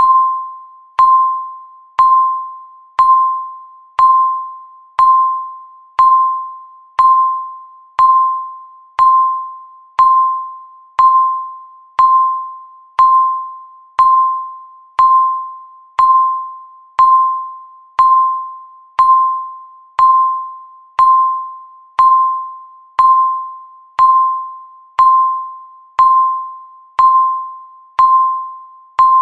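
Countdown timer's tick sound: a single clear pinging tone struck once a second, each ring dying away before the next, marking the seconds as the timer counts down.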